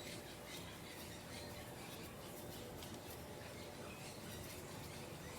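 Faint rubbing and soft handling sounds of hands working peanut butter cookie dough, with a few light scattered ticks.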